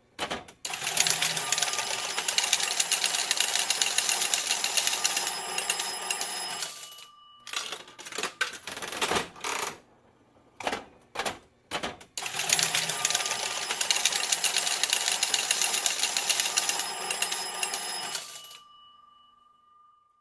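Coins pouring out of a slot machine payout in two long runs of rapid metallic clatter, each about six seconds, with a few scattered clinks between them. The second run fades out with a faint ring lingering.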